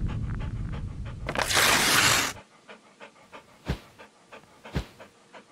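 Intro sound effects: a low rumbling sting, then a loud noisy whoosh lasting about a second. It is followed by faint, quick dog panting, about three breaths a second, with a few soft low thumps.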